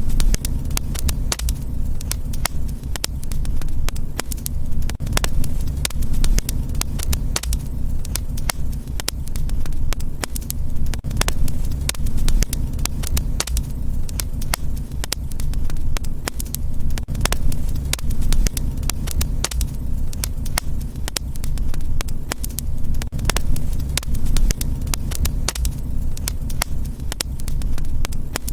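Fireplace fire crackling, with frequent irregular sharp pops over a steady low rumble of the flames.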